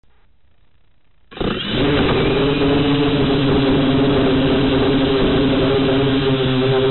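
Whirlwind XK X251 quadcopter's motors and propellers, heard close up from its onboard camera: quiet at first, then spinning up suddenly about a second in and running steadily with a hum of several pitches as it lifts off.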